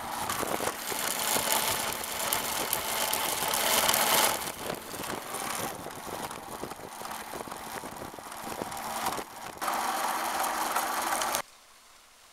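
Ride noise of a 1977 Batavus moped converted to electric with a 24-volt lawnmower motor and belt drive, heard from the handlebars: a steady rushing noise with rattling as it runs along the road. It cuts off suddenly near the end.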